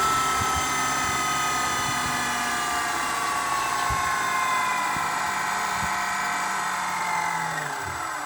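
Small electric motor and rotor of a 1/72-scale RC helicopter whining, its pitch slowly falling as it spins down. It fades out right at the end.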